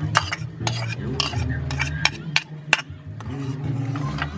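Metal ladle clinking and scraping against a bowl and the rim of an aluminium cooking pot as chopped ingredients are tipped into boiling water and stirred. There is a string of sharp, irregular clinks over a low, steady hum.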